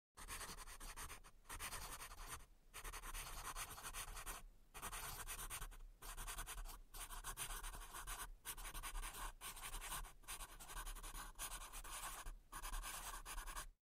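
Pen scratching across paper in quick writing strokes, in runs of about a second with short pauses between, stopping suddenly near the end.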